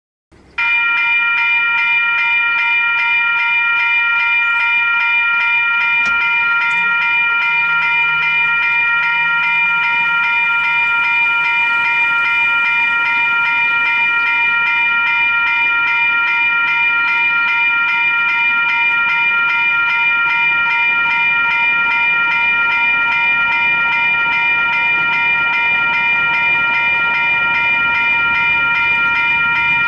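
Level-crossing warning bells, the old Griswold mechanical bells, ringing continuously with rapid, even hammer strokes. They start suddenly about half a second in, as the crossing activates to warn of an approaching train.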